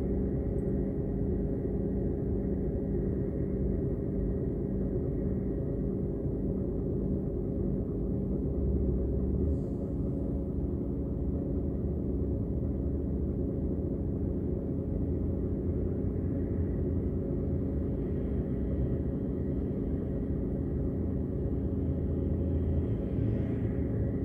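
A stationary vehicle's engine idling steadily: a low rumble with a constant hum. The low rumble swells a few times as other traffic moves through the junction.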